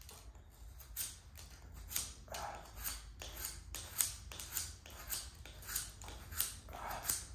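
Opinel No. 8 carbon-steel blade whittling a piece of wood, a steady run of short scraping cuts, about two a second, as shavings come off.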